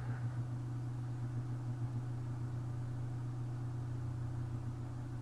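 A steady low hum that does not change.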